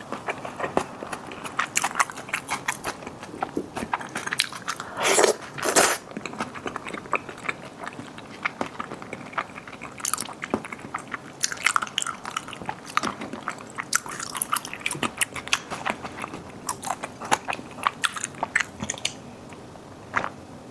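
Close-miked eating: a person biting and chewing food, with crisp crunching and wet mouth clicks in an irregular run. Two louder, longer bursts come about five and six seconds in.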